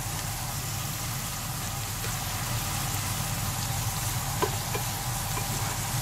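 Skate wing and sliced red onion sizzling in oil in a frying pan, over a steady low hum, with a couple of light clicks about four and a half seconds in.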